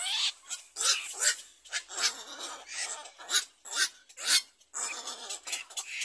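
Black-crowned night herons calling at the nest: harsh, raspy squawks repeated about twice a second, starting suddenly.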